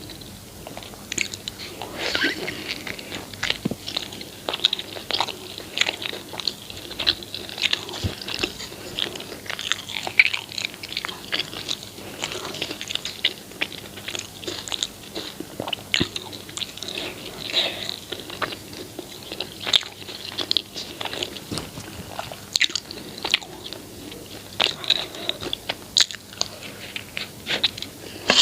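Close-miked chewing and biting of food, an irregular run of many sharp crunches and mouth clicks.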